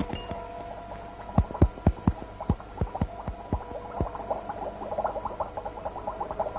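Combination dial of a safe being turned by hand, giving sharp, irregular clicks as it is worked. About four seconds in, a quick run of lighter ticks takes over, over a steady held tone.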